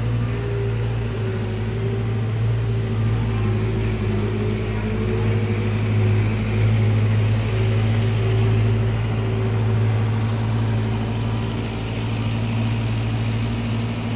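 A motor idling nearby: a steady low hum with a few even tones above it.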